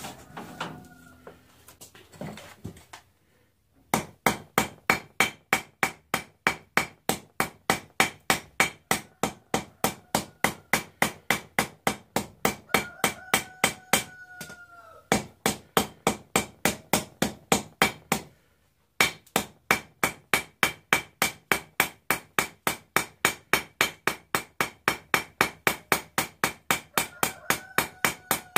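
Blacksmith's hand hammer striking a mild steel bar on an anvil at a steady pace of about three blows a second, starting about four seconds in: drawing out and retapering the tail of a forged handle. Each blow leaves a short metallic ring from the anvil, and the hammering pauses briefly twice.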